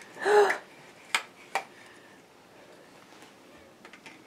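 A short, high-pitched vocal sound that rises and then falls in pitch, followed by two sharp clicks about a second in.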